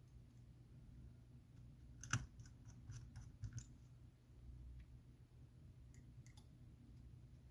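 Faint, scattered clicks of a precision screwdriver and tiny screws on the iPhone 7's metal connector bracket: a sharper click about two seconds in, a quick run of small clicks after it, and two more near six seconds.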